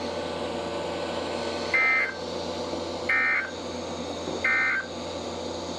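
Three short EAS/SAME end-of-message data bursts (the 'NNNN' warble) from a weather radio broadcast. Each burst lasts about a third of a second, about 1.3 s apart, over a faint steady radio hiss and hum, marking the close of the alert just read.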